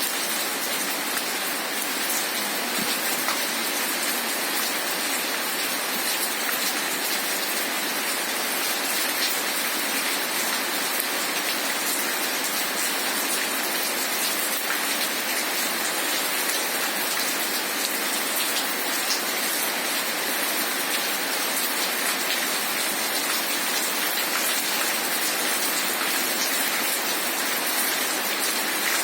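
Heavy rain falling steadily, a dense even hiss of drops with faint scattered patters.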